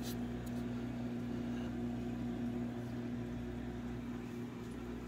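Steady electric hum of a reef aquarium's water pump and protein skimmer running, over a faint even hiss.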